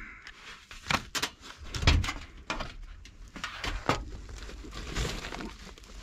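Sheet-metal access panel of a Trane air handler being pulled off and handled: a series of irregular knocks and clunks with some scraping.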